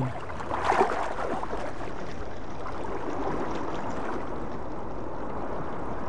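Underwater ambience in the surf zone: a steady, muffled rush and gurgle of moving water, with a few bubbling pops in the first second or so.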